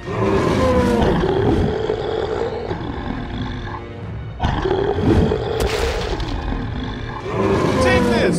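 Cartoon dinosaur roars, long pitched calls repeated about three times, over background music.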